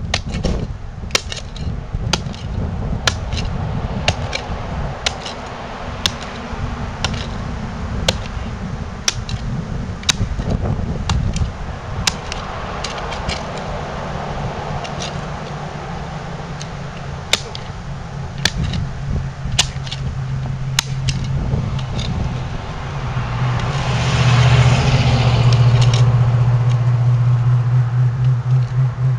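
Car running, with a loud low rumble and sharp ticks roughly once a second that stop about two-thirds of the way through. Near the end the engine note grows louder and steadier.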